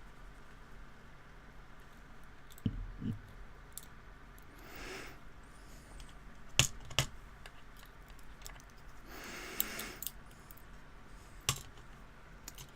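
Small metal clicks and taps from handling the pins of a padlock being taken apart, a few sharp clicks spread apart with two soft low knocks about three seconds in.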